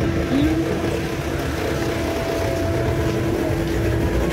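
Minibus engine running close by in street traffic, a steady low drone with a constant hum tone.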